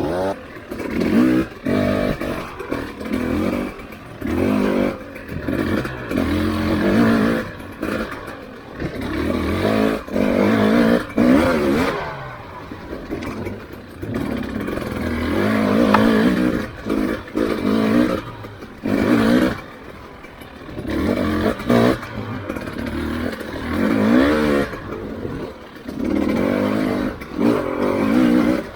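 Husqvarna TE300i 300cc two-stroke dirt bike engine under way on a trail, revving up and dropping off again and again as the throttle is worked. Knocks and clatter are heard in between.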